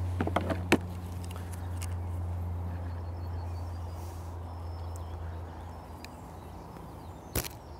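A few light clicks of tackle being handled, then near the end a single sharp snap of a bait catapult firing a pouch of casters. Under it runs a steady low hum that slowly fades.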